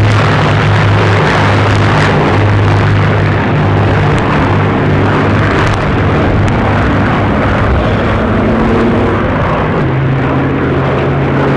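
Two Supermarine Spitfires flying overhead in formation, their V12 piston engines giving a loud, steady drone whose pitch rises slightly near the end.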